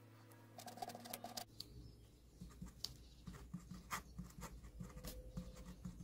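Pen writing on the paper of a guestbook: faint, irregular scratching strokes and light ticks as a name is signed.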